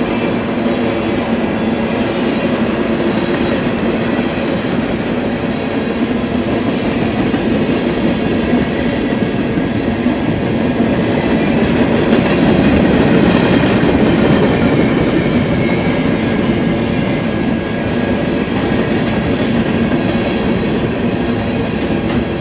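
Freight train of tank cars and covered hopper cars rolling past, its steel wheels running on the rails in a steady rumble that grows a little louder about halfway through.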